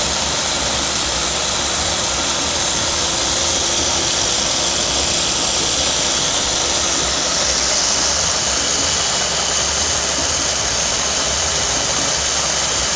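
Ninja food-processor motor running steadily, its blades spinning through a thick, raw green salsa of tomatillos, jalapeños and avocado.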